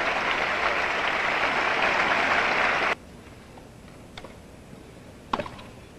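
Tennis crowd applauding for about three seconds, then cutting off abruptly. On the quieter court sound that follows there are a couple of sharp knocks, the loudest about a second before the end.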